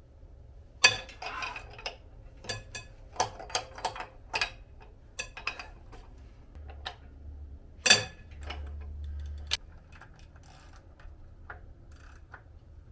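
Metal hand tools and timing-belt hardware on a Subaru EJ207 engine clinking and knocking as parts are unbolted and lifted off: an irregular run of sharp metallic clicks. The loudest knocks come about a second in and about eight seconds in.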